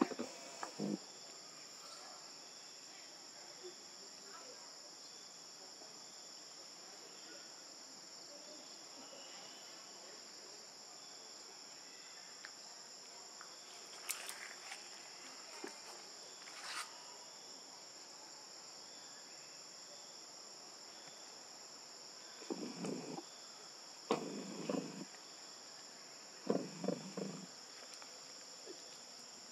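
Steady, high-pitched chorus of forest insects droning without a break. Near the end it is joined by a few short, louder low sounds.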